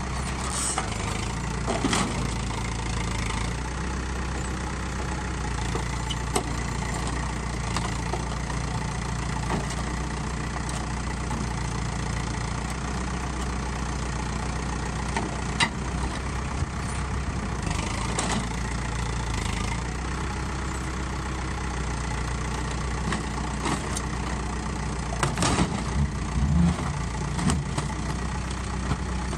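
Tractor engine running steadily while its front-end loader bucket tears at a scrap cooler, with scattered sharp knocks and crunches of metal being bent and broken, and a cluster of them near the end.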